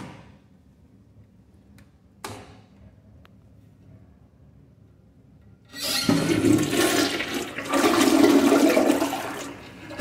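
American Standard Champion 4 Max toilet flushing: a loud rush of water starts about six seconds in, swells twice and eases off near the end. Two brief clicks come before it.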